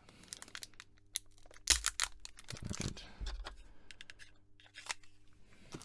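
Scissors snipping at a trading card pack: a scattered series of light, sharp clicks, one louder snip about two seconds in.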